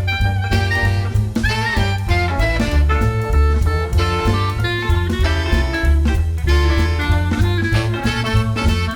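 Background music: an upbeat jazz track with saxophone, a walking bass and drum kit keeping a steady swing beat.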